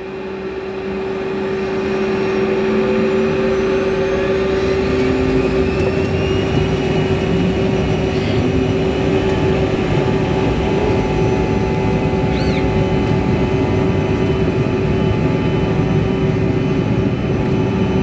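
Bombardier CRJ regional jet's rear-mounted turbofan engines spooling up to takeoff thrust, heard inside the cabin: a rising whine over the first few seconds, then loud and steady with a low rumble underneath through the takeoff roll.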